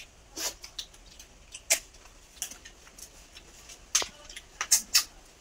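Two people eating cooked snails with rice by hand from steel plates: irregular short, sharp clicks and smacks, with a few louder ones about four and five seconds in.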